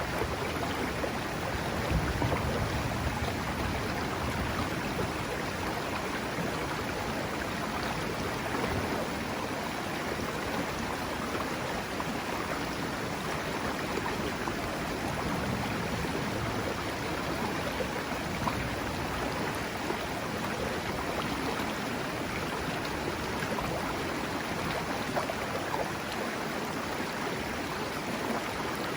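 The Serio river flowing: a steady rush of running water.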